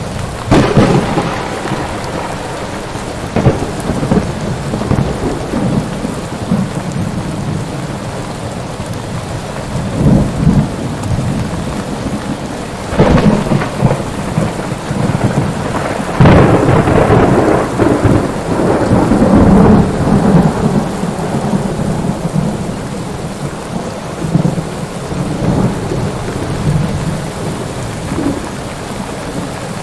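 Steady heavy rain with repeated thunder. There are sharp cracks near the start, about a third of the way in, and around the middle. The last crack is followed by a long rolling rumble lasting several seconds.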